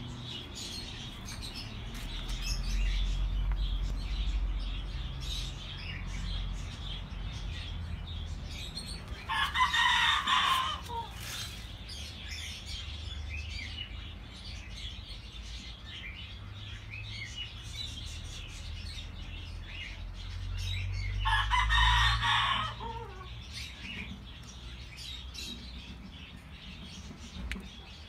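A rooster crowing twice, about twelve seconds apart, each crow ending in a falling note. Faint small-bird chirps and a steady low rumble run under it.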